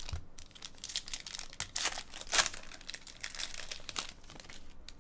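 Wrapper of a baseball card pack crinkling and tearing as it is opened by hand, a rapid run of crackles that is loudest about two seconds in.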